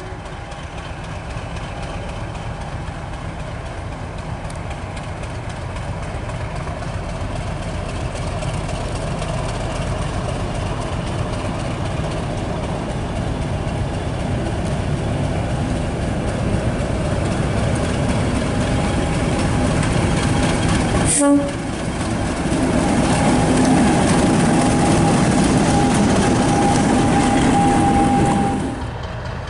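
British Rail Class 50 diesel locomotive approaching and passing close, its English Electric 16-cylinder engine growing steadily louder, with the steady whine that earned the class its 'Hoover' nickname over the last third. A brief sharp blip about two-thirds of the way in.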